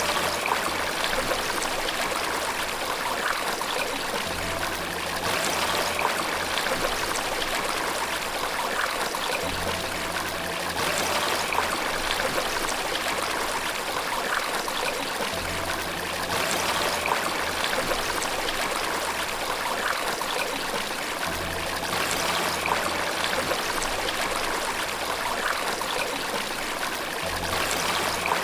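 Running water flowing and trickling in a steady stream. Faint low steady notes come back about every six seconds beneath it.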